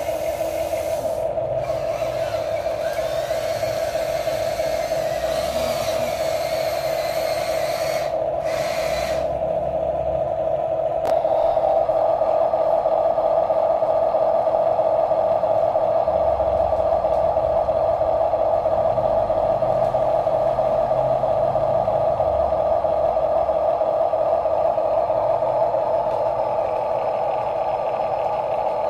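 Electric gear motors of RC toy construction vehicles whining steadily at one pitch, getting louder about eleven seconds in as more drive is applied.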